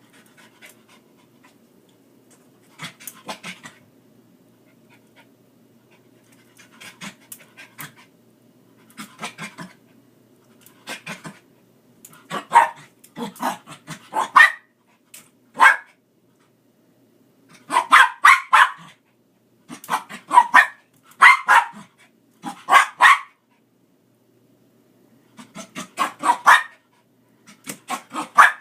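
Dog panting and huffing in repeated short bursts of quick breaths, louder from about twelve seconds in.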